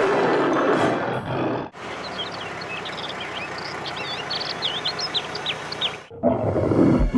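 Wildlife sound effects. A loud, rough noise cuts off after a second and a half, then forest ambience with many birds chirping. Near the end comes a low animal roar, the kind used for a lion or tiger.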